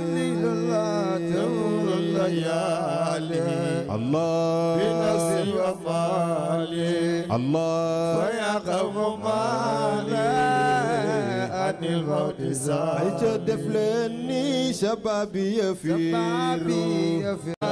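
Male voices chanting Islamic devotional poetry in Arabic, drawn out and melismatic, with long wavering notes carried over a steady held low note.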